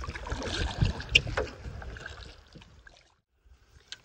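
Wind rumbling on the microphone over the water sounds of a canoe being paddled, with a sharp knock a little over a second in; the sound fades and drops to near silence about three seconds in.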